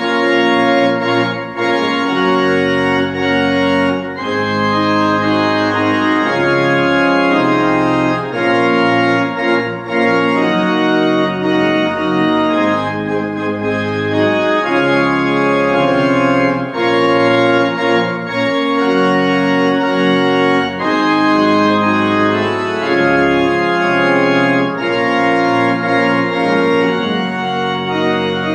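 Pipe organ playing a loud postlude of full sustained chords that change every second or so; it starts suddenly out of silence.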